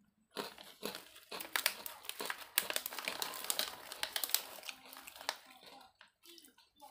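Irregular crinkling and crackling for about five seconds, dying away near the end.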